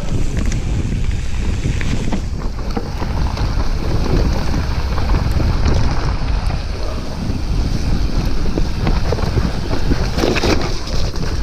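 Wind buffeting the microphone over the rumble of a mountain bike's tyres rolling fast on a dirt trail, with rattles and knocks from the bike over rough ground; a louder clatter about ten seconds in.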